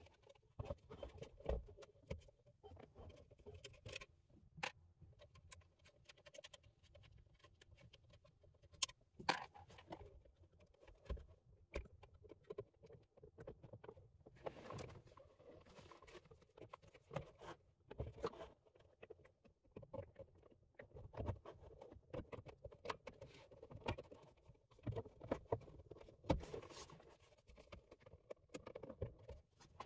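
Faint, irregular clicks, taps and scraping of plastic dashboard trim being handled: an E83 BMW X3 navigation screen housing being worked and pressed into its opening on top of an E85 Z4's dashboard. A few sharper clicks stand out, one about nine seconds in.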